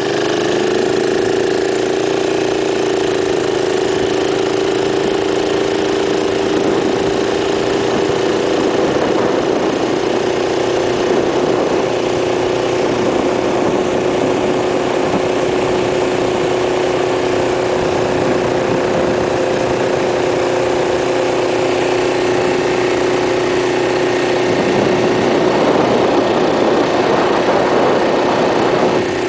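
1972 Rupp Roadster minibike's single-cylinder Tecumseh engine running at a steady cruising speed, its pitch holding nearly constant. A rushing noise swells for a few seconds near the end.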